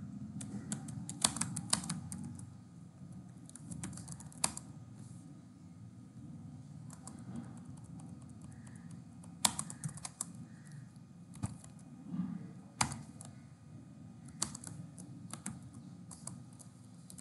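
Computer keyboard typing: irregular runs of key clicks with short pauses between them, over a low steady background hum.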